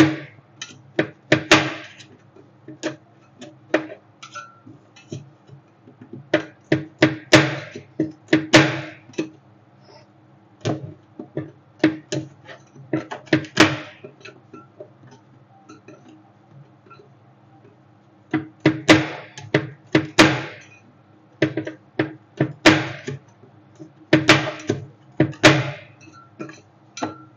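Metal spatulas chopping and scraping on the cold steel plate of a rolled ice cream machine, working Twix and ice cream: sharp irregular clacks, several times in quick runs, with short scrapes. A steady low hum sits underneath.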